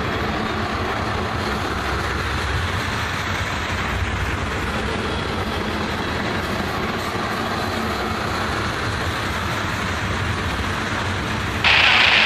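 Loaded tank cars of a freight train rolling past, a steady rumble of wheels on rail. Near the end a sudden loud hiss cuts in abruptly over it.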